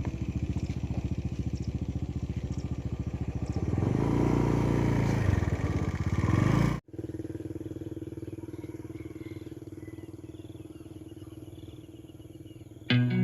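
A small engine running with a fast, even beat, louder about four seconds in; after a sudden cut about halfway, a quieter engine hum fades away.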